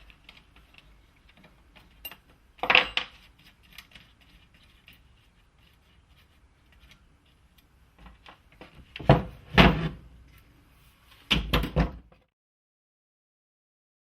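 Clunks and clatters of an air framing nailer and hand tools being handled as it is taken apart: a short cluster about three seconds in, a louder group about nine to ten seconds in, and another about eleven seconds in. The sound then cuts off to dead silence.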